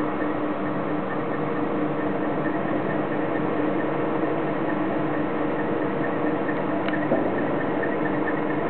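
Hydraulic power unit driving a fatigue-test cylinder, running with a steady hum and a held whine, with one sharp click about seven seconds in.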